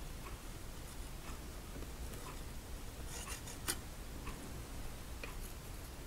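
Faint, regular ticking, about one tick a second. About three seconds in, a palette knife scrapes briefly on the canvas, ending in a sharper click.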